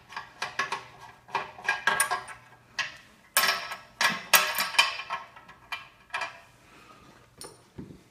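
Irregular metallic clicks and clinks as the retaining knob on a metal lathe's gear-side cover is unscrewed by hand and taken off. The clinks are loudest around the middle, and a dull thump comes near the end.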